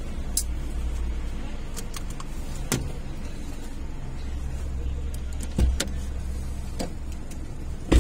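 Inside a car: a steady low engine and road hum, with a few sharp clicks and knocks from within the cabin, louder ones about halfway through and the loudest right at the end.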